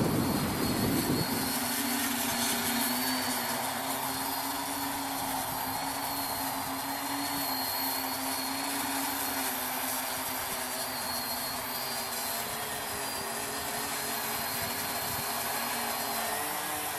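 Homemade quadcopter's four electric motors and propellers whirring steadily as it hovers low, the pitch wavering slightly as the motor speeds adjust. A louder rushing noise covers the first second or so.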